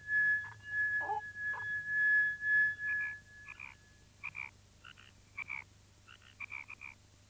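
A drinking glass sings a steady high tone as a wet finger is rubbed round its rim, with a few squeaky rubbing sounds, and the tone fades out about four seconds in. Overlapping and then following it, a tree frog calls with a series of short, quick notes, some in close clusters.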